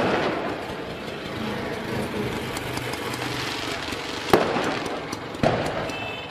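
Aerial fireworks shells bursting overhead: a sharp bang at the start and two more about four and five and a half seconds in, over a steady background rumble. A brief high whistling tone sounds near the end.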